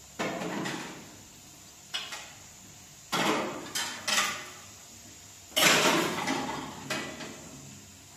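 A series of seven sharp knocks or clatters, each fading over about half a second: one near the start, one about two seconds in, three close together a little past three seconds, the loudest one past five and a half seconds, and a last one near seven seconds.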